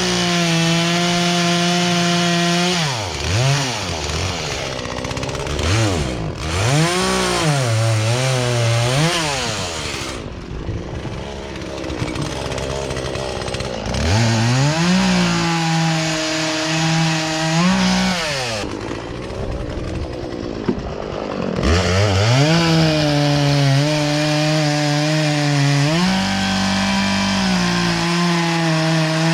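Poulan Pro two-stroke chainsaw running at high revs. Its pitch sags and climbs back several times, and there is a quieter stretch about a third of the way through. With its carburetor's low and high speed mixture just adjusted, it now runs right.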